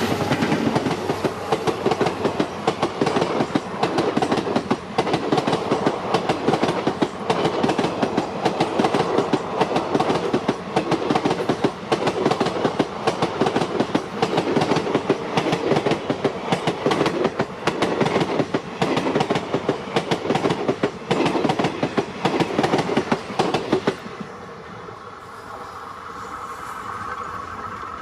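Passenger coaches (ICF Utkrisht rake) of an express train rolling past at speed, their wheels clattering rapidly over rail joints. About 24 s in the clatter drops off sharply to a fainter, receding rumble as the end of the train goes by.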